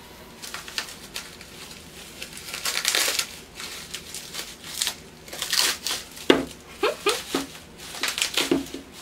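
Thin clear plastic bag crinkling and rustling in irregular bursts as it is pulled open by hand to unwrap a small plastic toy pony.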